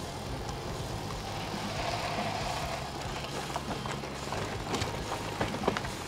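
Wind rumble on an action camera's microphone while cycling, with the bicycle rattling and knocking over bumps in the second half.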